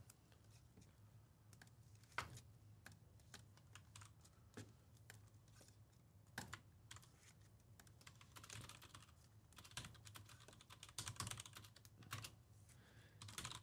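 Faint, scattered clicks of typing on a computer keyboard, some single and some in short quick runs, with the runs thickest in the second half.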